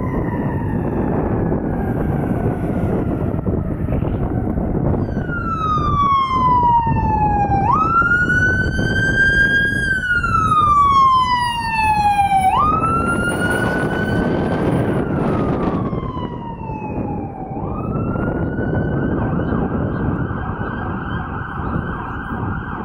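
Electronic wail sirens on responding emergency vehicles, over diesel engine and road noise. At first a fire engine's siren slides down in pitch as the truck moves away. From about five seconds in, an ambulance siren sweeps up quickly and falls slowly every few seconds, then holds a steady high tone near the end.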